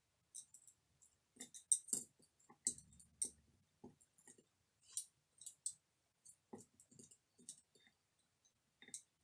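Chopsticks clicking against each other, the ceramic bowl and the Maltesers in it: faint, irregular clicks and taps.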